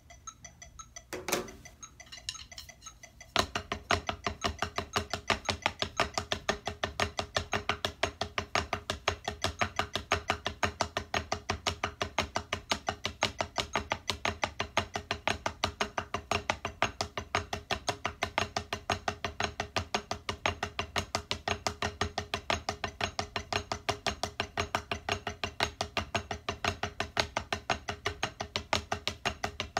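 Drumsticks striking a drum practice pad on a stand: a few scattered knocks in the first seconds, then from about three seconds in a fast, even, unbroken stream of strokes.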